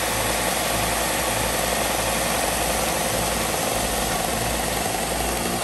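Benchtop belt-and-disc sander running steadily, its electric motor and abrasive belt making an even hum and whir while the belt's tracking knob is turned in.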